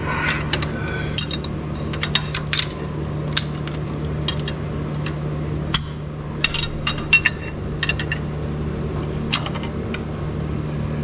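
Sharp metallic clicks and clinks of vise-grip pliers and a bar working against the rocker and a badly bent pushrod in a 1963 Chevy straight-six's valvetrain, as the pushrod is forced out. The pushrod was bent by a stuck intake valve. A steady low hum runs underneath.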